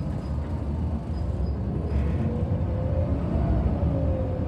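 Scania L94UB bus underway, heard from inside the cabin: steady low engine and road rumble, with a drivetrain whine that rises in pitch from about two seconds in and falls away again near the end.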